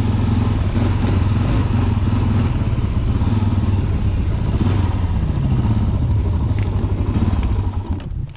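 Honda TRX400EX quad's single-cylinder four-stroke engine running steadily on the move, its pitch dropping about five seconds in as the rider eases off. The engine note falls away and goes quieter near the end as the quad pulls up.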